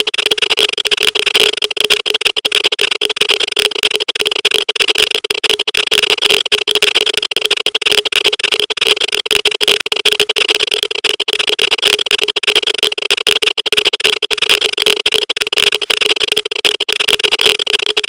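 Geiger counter crackling with a loud, dense, rapid stream of clicks that holds steady, as if over a strongly radioactive source.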